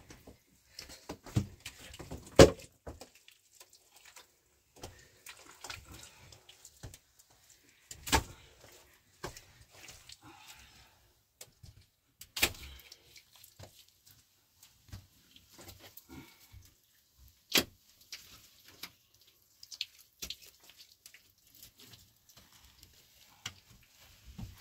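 Scattered sharp knocks and clicks at irregular intervals. The loudest knock comes about two seconds in, and a few other strong ones come several seconds apart.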